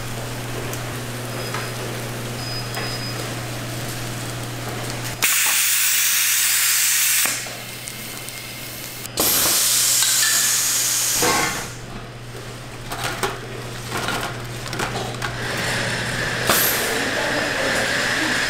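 Food-factory machinery humming steadily, cut by two loud hissing blasts of about two seconds each that start and stop abruptly, followed by irregular knocking and clatter.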